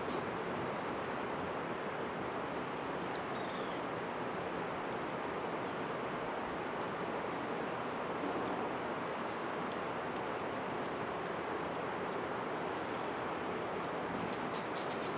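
High, thin bird chips and twitters, in quick clusters near the start and again near the end, over a steady background hiss.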